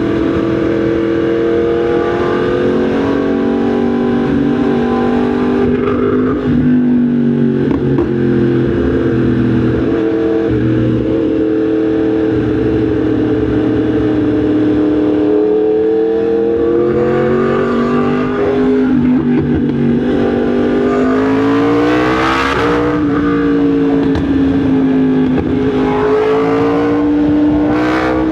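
Yamaha MT-10 SP's crossplane inline-four engine running under way, its pitch mostly steady with small dips as the throttle eases, then rising for a couple of seconds about three quarters of the way through as it speeds up. A rush of wind noise comes with that rise, and again briefly near the end.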